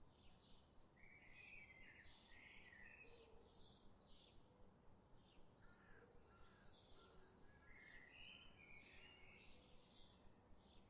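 Faint birdsong from a stock nature recording: many short, rapidly repeated high chirps, with two spells of lower, harsher calls mixed in.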